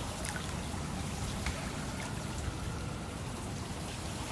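Steady rush of flowing water, with a few faint clicks over it.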